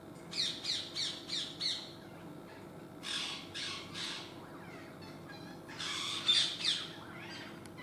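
Rose-ringed parakeet squawking: a quick run of five short falling calls, then harsher screeches, loudest about six seconds in.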